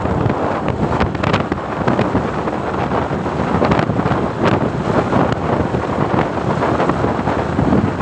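Loud wind buffeting the microphone while riding along a road in a moving vehicle, with the low rumble of the ride underneath.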